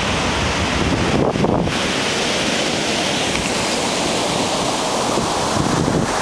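Ocean surf: a continuous, steady wash of breaking waves.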